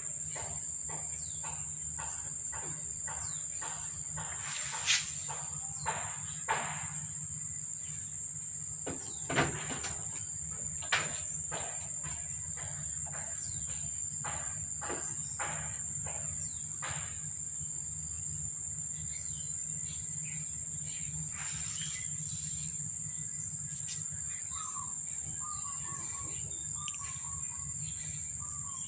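Insects droning steadily at a high pitch, with scattered sharp clicks, mostly in the first half. A few short chirps come near the end.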